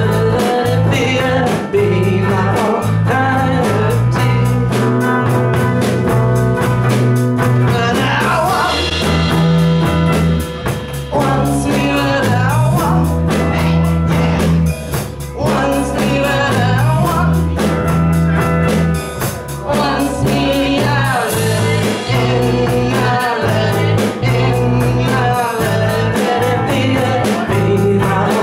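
Psychedelic rock band playing live: electric guitars and drums with a steady beat, and women singing.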